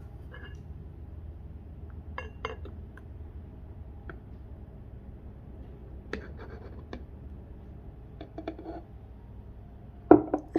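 Light clinks and taps of mugs, a milk jug and utensils being handled on a counter while a cappuccino is put together, a few at a time with pauses between, and a louder knock or two near the end.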